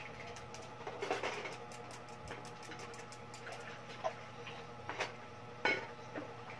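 Scissors being forced into a thin aluminium drink can: a run of small rapid clicks and crinkles from the blade working into the metal, with a few louder sharp snaps near the end.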